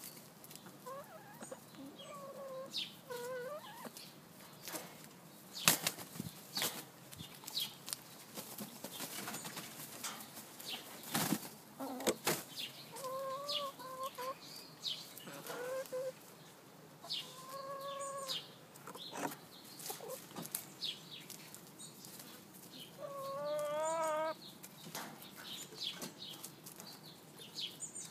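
Hens giving short, drawn-out clucks now and then while pecking at spinach leaves on straw, with many quick taps and rustles from their beaks and feet. There are a few louder knocks, and a longer wavering call near the end.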